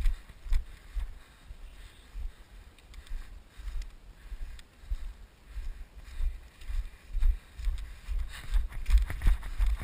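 Footsteps of a person walking briskly through grass, heard as dull thumps of the body-worn action camera jolting about twice a second, with wind buffeting the microphone.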